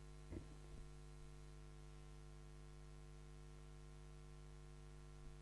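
Near silence: a steady electrical hum from the sound system, with a few faint knocks in the first second as people sit back down at their chairs.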